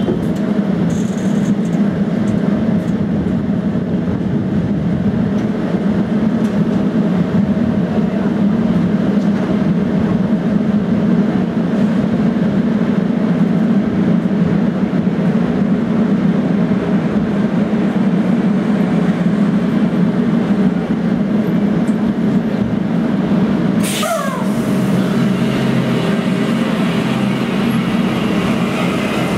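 Translohr rubber-tyred tram standing at close range with a steady low hum from its equipment. Near the end a sudden short sound drops in pitch, and a lower hum sets in as the tram starts to pull away on its Michelin tyres.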